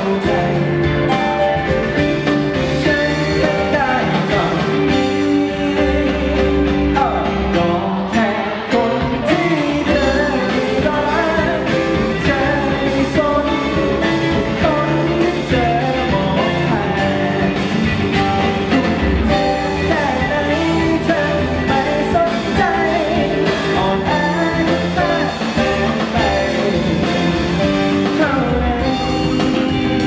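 Live band playing a song: a man sings lead over strummed acoustic guitar, electric guitar, keyboard and drums.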